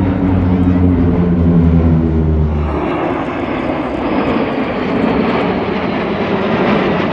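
Military turboprop formation flying over, a four-engine turboprop flanked by two twin-engine turboprops: a deep, steady propeller drone that sinks slightly in pitch as it passes. About three seconds in, the sound switches abruptly to the broad rushing noise of a formation of jet fighters flying past.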